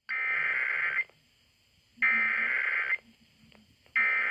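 Emergency Alert System SAME header: three bursts of digital data tones, each about a second long with about a second's pause between, opening a Required Monthly Test.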